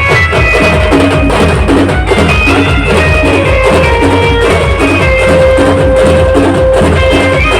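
A village band playing an instrumental folk tune: a fast, steady drum beat under a melody of long held notes.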